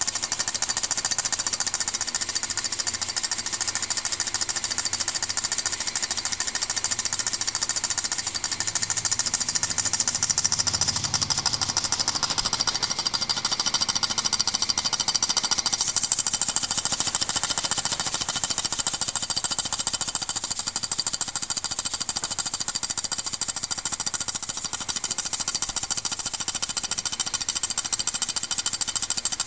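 Small brass model steam engine running on compressed air: a fast, steady clatter of the moving parts with hissing air.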